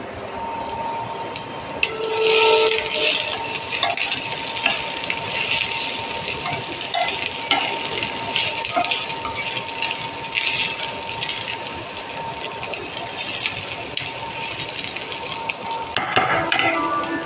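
Sliced green beans sizzling as they are stir-fried in a frying pan, with a spatula scraping and clicking against the pan as they are tossed. The stirring is loudest about two seconds in and again near the end.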